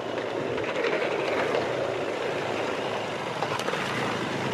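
Off-road motorcycle riding: a steady vehicle noise with no clear engine pitch.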